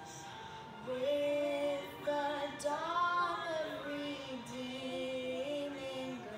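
A female voice singing a song with long held notes, with music behind it.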